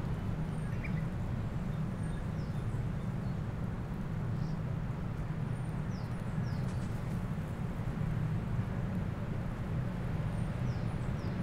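Open-air mountain ambience: a steady low rumble throughout, with scattered faint, short high bird chirps, a dozen or so quick falling notes.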